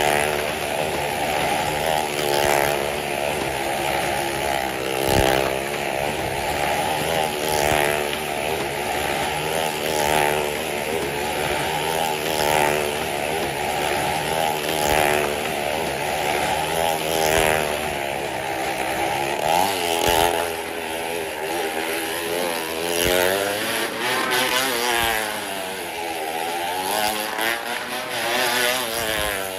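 Motorcycles running hard as they circle the wooden wall of a well-of-death drum. The engine pitch and loudness swell and fall about once every two and a half seconds as a bike sweeps past on each lap.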